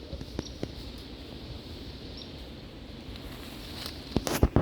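Steady wind and rain noise, with a couple of faint clicks and a short cluster of sharp cracks near the end.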